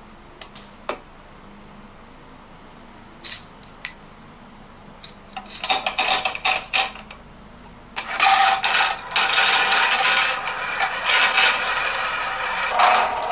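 Marbles clicking and rolling down a HABA marble run track. A few single clicks come first, a brief flurry follows midway, and from about eight seconds in there is a dense, steady clatter of many marbles.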